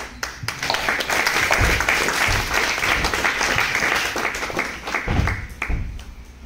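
Audience applauding. The clapping swells within the first second, holds for about five seconds, then dies away.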